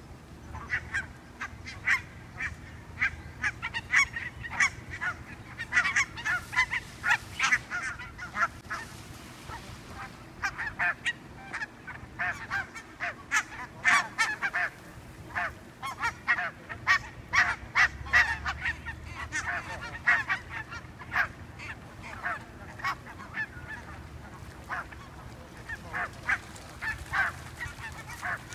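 A flock of barnacle geese calling: many short, sharp honks overlapping one another with hardly a break.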